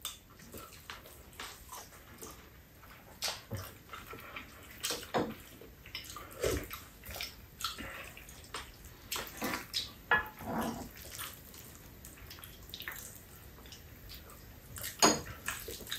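People eating fried rice: wet chewing and lip-smacking mouth sounds, with scattered short clicks of spoons and chopsticks against bowls and a pan.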